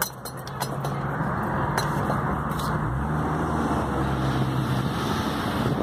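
Car engine running and road noise heard from inside the moving car with a window open; the engine note shifts about halfway through.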